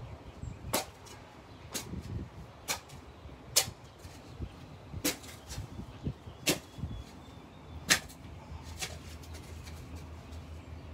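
Metal shovel blade being driven into the soil while digging a planting hole, giving a sharp scraping strike every second or so, about seven in all, with a quicker run of small scrapes near the end.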